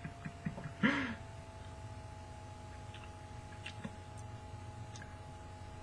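Mostly quiet room tone with faint steady tones, broken about a second in by a brief, short, falling vocal sound from a person, with a few faint clicks.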